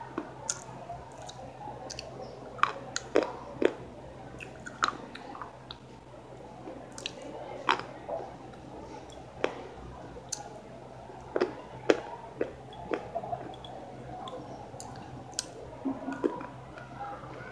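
A person biting and chewing something crunchy close to the microphone, with irregular sharp crunches and mouth clicks.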